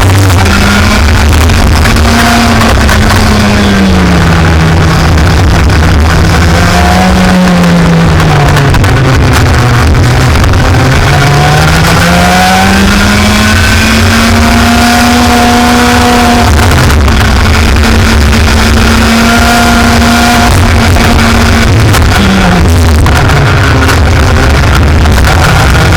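Racing kart engine heard onboard, its pitch rising and falling smoothly as the revs climb on the straights and drop into the corners. It runs very loud, at the limit of the microphone. The driver describes the engine as sounding bad and having problems.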